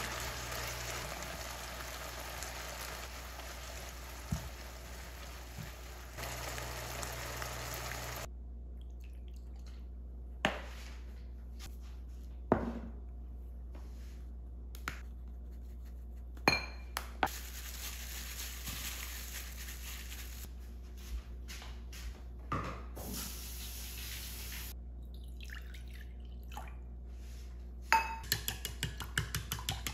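Squid and vegetables stir-frying in a nonstick pan, sizzling steadily while a wooden spatula stirs them, for the first eight seconds or so. Then a few sharp single clinks of food and utensils against a glass bowl, and near the end a quick run of light clicks against the glass bowl.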